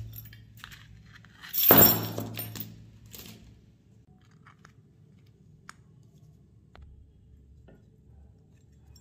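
Small steel AK-47 trigger-group parts handled with gloved hands: a loud metal clatter lasting about a second, just under two seconds in, then a few faint clicks.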